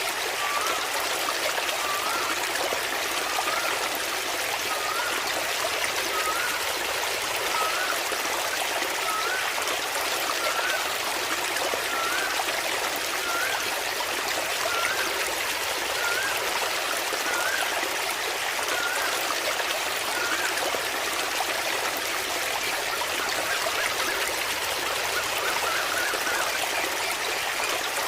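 Small waterfall splashing and trickling steadily. A short rising chirp repeats about once a second over it, stops about 20 seconds in, and comes back briefly near the end.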